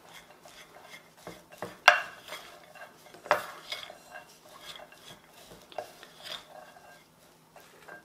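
Wooden spoon stirring cooked lentils and flour in a ceramic bowl: irregular scrapes and knocks of the spoon against the bowl. The loudest come about two and three and a half seconds in.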